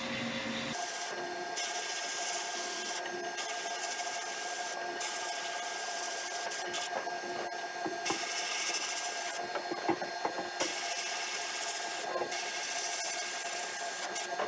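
Abrasive blasting in a blast cabinet: a steady hiss from the blast gun's nozzle that drops out briefly several times as the blast is stopped and restarted, over a steady hum, with a few light knocks.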